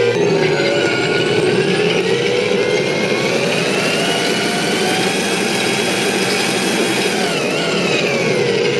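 Simulated M1A2 Abrams gas-turbine engine sound from an RC tank's sound board, played through its speaker: it rises in pitch over about five seconds as the engine spools up, holds, then falls back to idle near the end.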